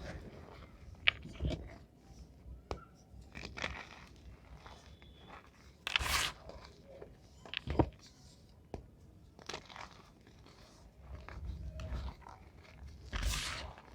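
Reformed gym chalk blocks being crushed and crumbled, giving irregular sharp crunches and dry crackles. There are louder, longer crunches about six seconds in and again near the end.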